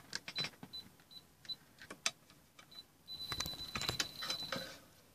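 Beeper of a GD118B digital multimeter giving short high blips, then a steady beep about one and a half seconds long a little after three seconds in: its alert that it is detecting voltage. Scattered clicks are heard along with the beeps.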